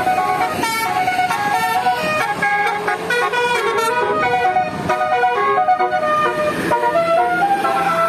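Bus 'telolet basuri' musical air horn playing a quick melody, its notes stepping up and down in pitch one after another.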